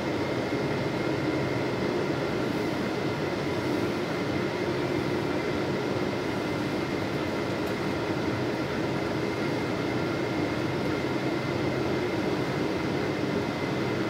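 Steady cabin noise inside a jet airliner descending on approach: an even drone of engines and airflow, with a few faint steady tones above it.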